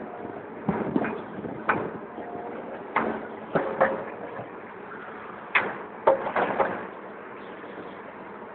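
Concrete blocks cracking and knocking as a Caterpillar 322 excavator's bucket rips at a block wall: a series of irregular sharp knocks and crashes over the machine's steady running.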